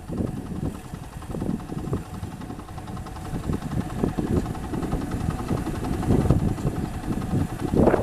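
Combine harvester's engine running with an uneven low rumble that grows somewhat louder toward the end.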